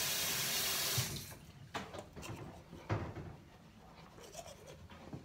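A sink tap runs with an even hiss, then shuts off sharply about a second in. After that come faint, scattered scrapes of a toothbrush scrubbing teeth.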